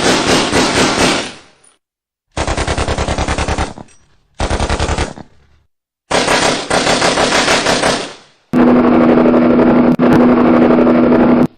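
Four short bursts of rapid, evenly repeated mechanical strikes, each a second or two long, with silent gaps between them. About two-thirds of the way in they give way to a different machine running with a steady low hum under a fast rattle, which cuts off suddenly at the end.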